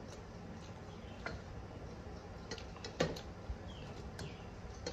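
Scattered light clicks and clinks of a steel spoon against stainless-steel plates and a serving bowl during a hand-eaten meal, the loudest one about three seconds in.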